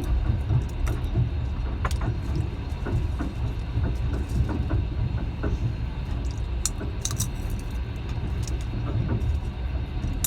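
Passenger train running along the track: a steady low rumble with scattered clicks and rattles from the carriage and rails.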